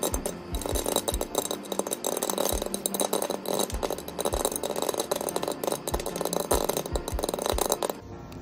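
Popcorn kernels popping fast in hot oil in a pan under a glass lid: a dense, irregular rattle of pops with some duller thumps. The popping cuts off abruptly near the end.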